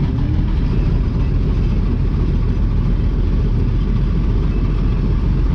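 Gleaner combine's diesel engine idling steadily after a cold start.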